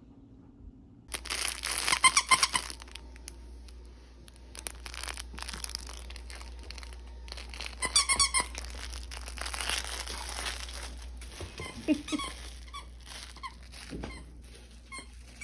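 A dog's squeaky toy squeaking in quick runs as a dog chews it, about two seconds in and again about eight seconds in, with crinkling and rustling between.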